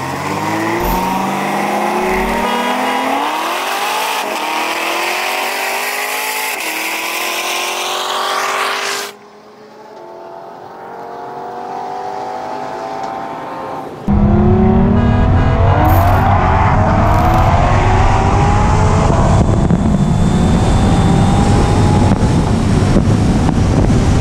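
Sports car engines at full throttle in a drag race, pitch climbing with each gear and dropping back at the upshifts. About nine seconds in the sound cuts to a quieter take of a car accelerating, and from about fourteen seconds a loud rush of wind buffeting the microphone covers an engine still climbing in pitch.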